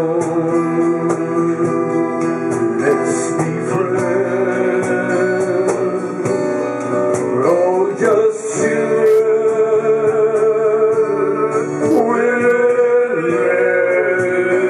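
Live acoustic band playing a slow song: strummed acoustic guitar and upright bass under singing in long held notes.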